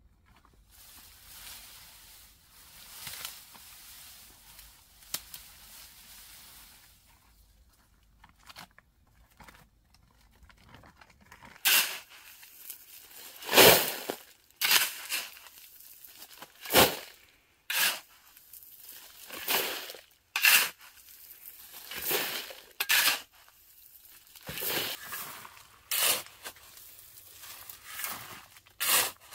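Hand digging tool working sand and gravel: faint scraping at first, then from about twelve seconds in, sharp crunching strokes about once a second.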